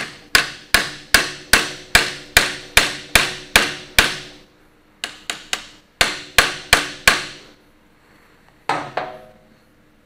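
Hammer blows on the steel steering-shaft coupling of a Farmall H tractor, each ringing briefly. A steady run of about eleven strikes, two or three a second, is followed by three quicker taps, four more blows, and a last hit near the end that rings longer.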